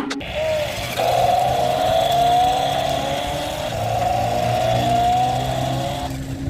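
Toy RC twist climbing stunt car's small electric motors and plastic gears whirring as it drives, a steady whine that wavers up and down.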